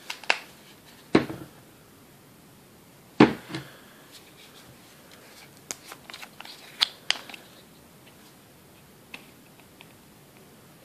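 Benchtop handling sounds: two sharp knocks as things are set down or picked up, then small plastic clicks and rubs as the cap of a plastic shock-oil bottle is worked open.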